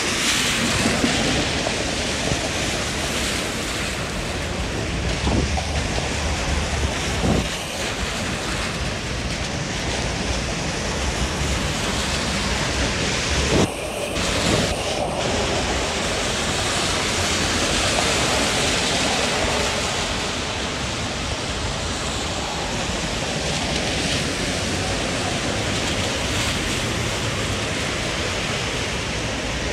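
Steady hiss of traffic on a rain-soaked road, car tyres swishing over wet pavement, with wind noise on the microphone. The hiss briefly drops out twice near the middle.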